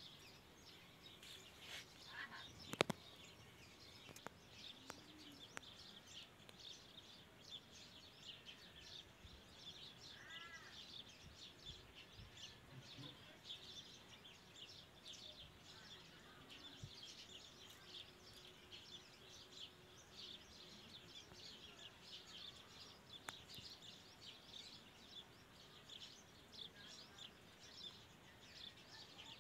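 Faint, continuous high chirping of small birds in the background, with a single sharp click about three seconds in.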